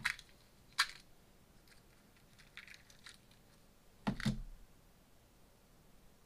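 A small clear plastic container of jewelry being opened and handled on a table: a sharp plastic click about a second in, faint rattling, and a louder double knock just after four seconds.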